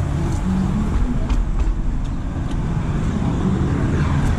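Mercedes-Benz Sprinter van on the move, its engine and road noise making a steady low rumble, with a few faint ticks.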